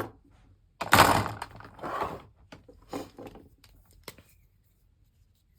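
Craft supplies being handled at a work table: a loud rustle or clatter about a second in, then scattered softer rustles and knocks and one sharp click about four seconds in.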